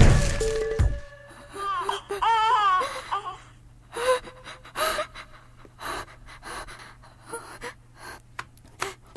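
Background music cuts off about a second in. A person then wails in a wavering voice and breaks into a run of short, gasping sobs.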